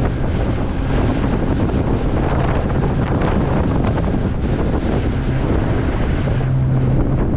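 Wind buffeting the microphone over the steady hum of a boat's motor running, as the boat travels on open water.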